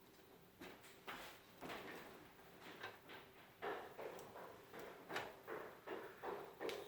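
Irregular clicks, knocks and light scrapes of metal computer hardware being handled and fitted into a PC case, about two a second.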